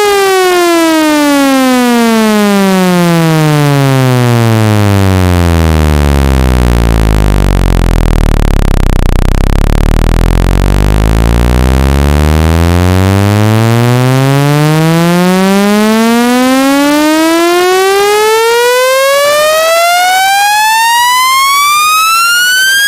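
Synthesized speaker-cleaning tone, buzzy and rich in overtones, sliding steadily down in pitch to a deep hum that holds for several seconds in the middle, then sliding back up to a high tone. A sweep of this kind is played to shake water and dust out of a phone speaker.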